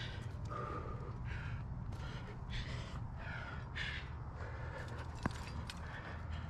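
A crow cawing repeatedly, short harsh caws about every half second, over a low steady rumble, with one sharp click about five seconds in.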